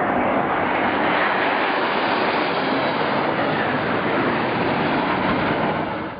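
Jet engine roar of a Sukhoi Su-24's twin turbojets making a low pass close over a warship, a steady loud rush that falls away near the end.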